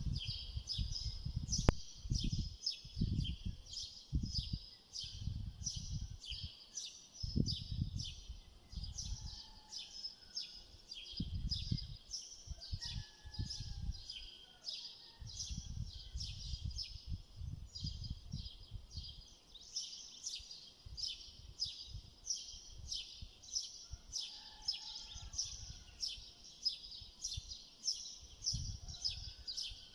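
A bird chirping steadily in the background, a few short high chirps a second without a break, over dull, irregular low thumps of a knife cutting raw potato into sticks on a cutting board.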